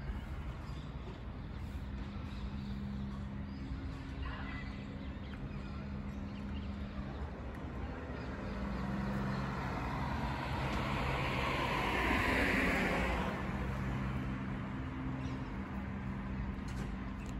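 Road traffic: a steady low engine hum, with a vehicle passing that swells to its loudest about twelve seconds in and then fades.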